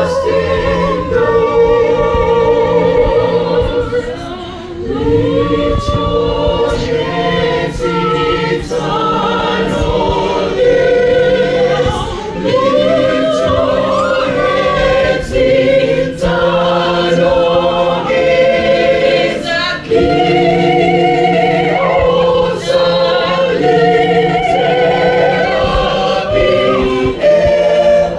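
Gospel choir singing with instrumental accompaniment: a steady bass line and light percussion under several sustained, moving vocal parts.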